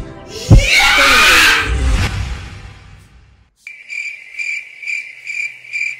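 The background music ends on a loud noisy crash that fades away over about two seconds. A little past halfway, a cricket-chirping sound effect starts suddenly, with steady high chirps about two and a half a second.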